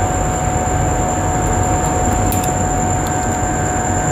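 A steady mechanical whir with a low hum and a constant high whine, with a few faint ticks.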